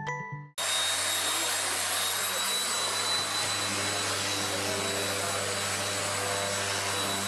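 Electric hand planer starting up suddenly about half a second in and running steadily, a constant high whine over a low hum.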